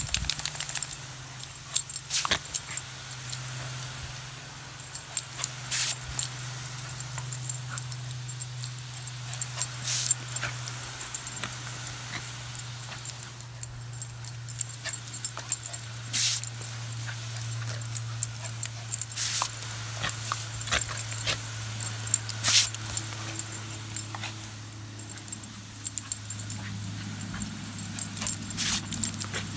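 Garden hose spraying water in a steady hiss while a Jack Russell terrier plays in the spray, making short sharp sounds every few seconds. A steady low hum runs underneath.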